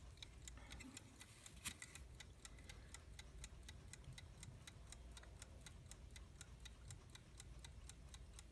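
Faint, steady ticking of a vintage US Time 'Waterbury' alarm clock movement running on the bench, about five ticks a second, with one louder click about a second and a half in.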